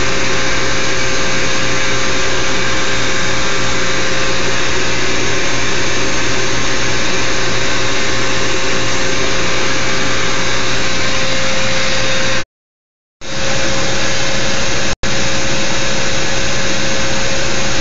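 Bee vacuum running steadily, sucking honey bees off a board through its corrugated hose: a rushing of air with a steady hum over it. The sound cuts out completely for under a second about two-thirds of the way in, and for an instant again a couple of seconds later.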